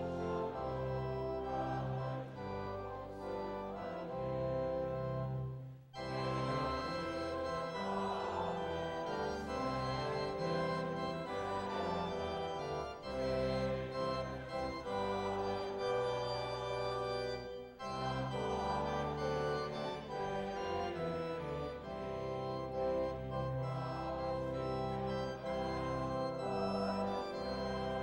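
Organ playing held chords, with short breaks between phrases about six seconds in and again near eighteen seconds.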